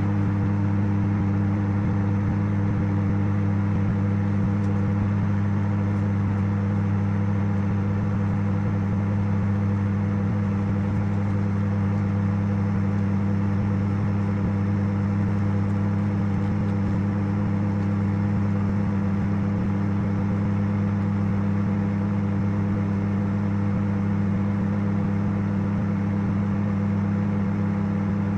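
Microwave oven running: a steady, loud hum with a strong low drone that does not change.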